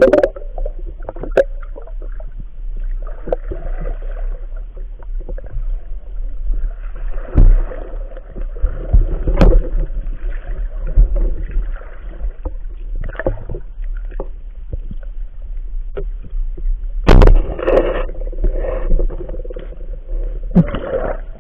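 Muffled underwater sound picked up by a camera submerged in a river during a night spearfishing dive: a steady low rumble with scattered knocks, and several louder bursts of noise, the strongest near the end.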